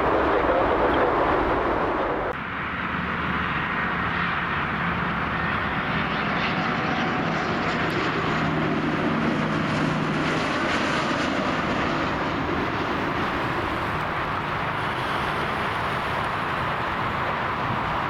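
Jet airliner engines running, a steady roar of engine and air noise with a faint low hum, dropping abruptly about two seconds in and then holding steady.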